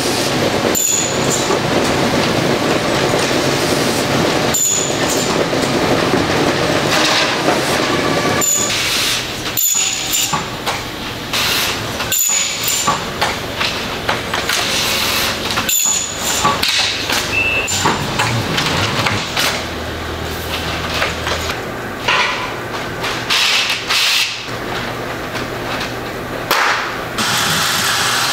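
Factory noise from a rolling-shutter manufacturing shop: machinery running with clanks and knocks, broken by several abrupt cuts.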